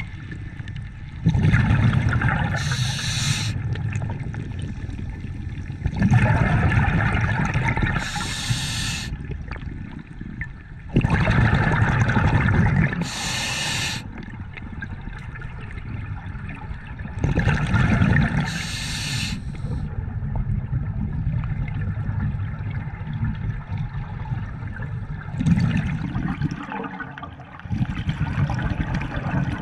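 Scuba diver breathing through a regulator underwater: bursts of exhaled bubbles rushing out and the hiss of the regulator on the inhale, repeating about every five to six seconds.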